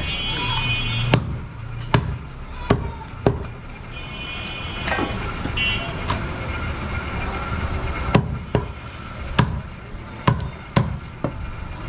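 Heavy cleaver chopping a goat carcass on a wooden chopping block: single sharp chops, four spaced through the first few seconds, then a quicker run of about six near the end.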